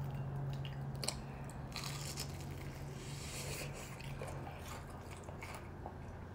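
Biting into and chewing a deep-fried, breaded king crab leg, the crisp fried crust crunching. A steady low hum runs underneath and fades out a little past halfway.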